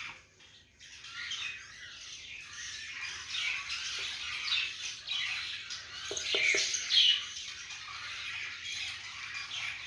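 Budgerigars in a nest box calling, a near-constant stream of raspy, squawking chirps, with a few sharp clicks a little past halfway.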